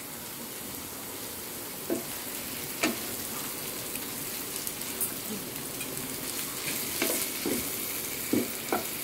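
Moringa drumstick pieces, onion and tomato sizzling in oil in a nonstick frying pan, stirred with a spatula. The spatula knocks and scrapes against the pan now and then over a steady hiss.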